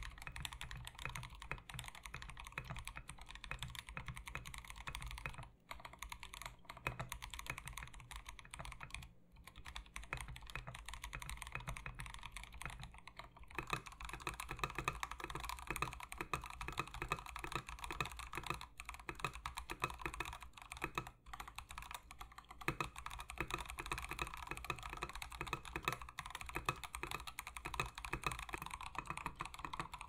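Fast, continuous typing on a KBD8X MKII polycarbonate-case mechanical keyboard with Gazzew Boba U4T tactile switches lubed with 203g0 and MT3 Serika keycaps. The first part is typed on a POM plate in gasket mount; partway through, after a short pause, the typing continues on an FR4 plate in top mount.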